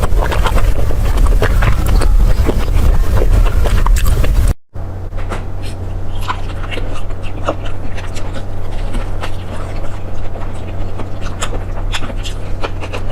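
Close-miked eating: biting and chewing clicks over a heavy low rumble, then a brief break about four and a half seconds in, after which sparser chewing clicks continue over a steady low hum.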